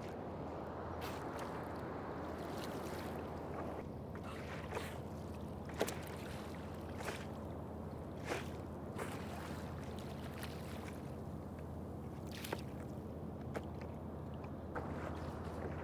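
A boat's motor idling with a steady low hum, and water lapping and splashing, with several short sharp splashes scattered through.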